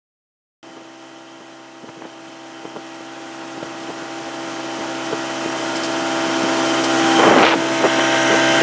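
Small river boat's motor running steadily, a hum with a few steady tones that grows louder and louder, with a brief rush of noise about seven seconds in.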